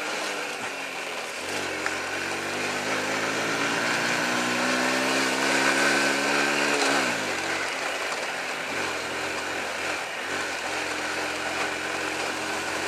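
Honda C90's small single-cylinder four-stroke engine pulling along a dirt track. Its revs climb steadily for several seconds, drop sharply about seven seconds in, then run lower before picking up again near the end.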